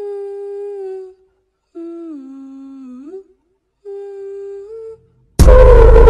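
A voice humming three slow, separate notes with silence between them; the middle note dips low and then slides back up. Loud music cuts back in near the end.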